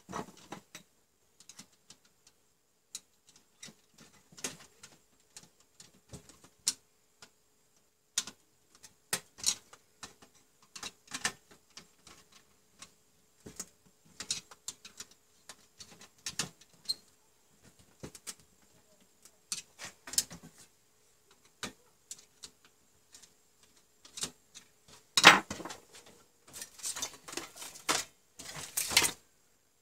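Scattered small clicks and taps of hands fitting a metal comb busbar onto a row of plastic DIN-rail circuit breakers, with a louder burst of clatter and scraping near the end.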